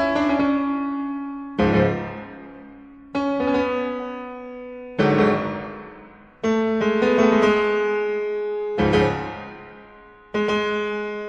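Background classical piano music: slow chords, each struck and left to fade, a new one about every one and a half to two seconds.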